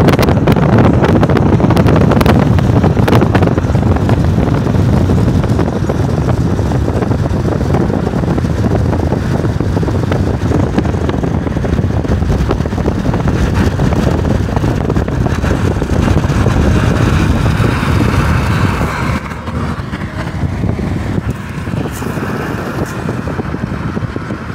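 Jet airliner passing overhead: a loud, steady jet roar that slowly fades, then drops off markedly about nineteen seconds in.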